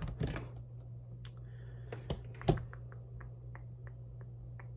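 Faint handling noise on a stone kitchen countertop: a few knocks as a spiral notebook is set down and handled, then a run of small soft clicks, about three a second, as polymer clay is rolled between the fingers, over a steady low hum.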